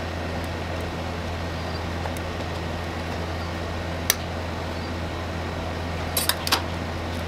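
Steady low hum of an ice-roll cold pan's refrigeration unit. Over it come a sharp metal click about four seconds in and a quick run of clicks near the end, from steel spatulas striking each other and the pan.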